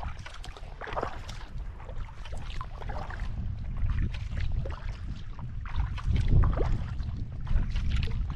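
Double-bladed kayak paddle dipping into the sea stroke after stroke, with splashing and water sounds from the sea kayak, over a steady low rumble of wind on the microphone.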